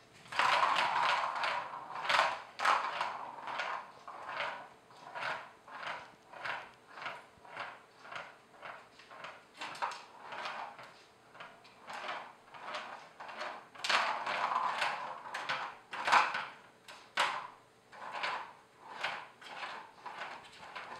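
Plastic balls rolling and rattling around the curved plastic track of a Catit Senses Speed Circuit, set going by a cat's paw. The rattle starts suddenly, repeats about twice a second as the ball circles, and comes in louder bursts at the start and again about two-thirds through when the ball is batted again.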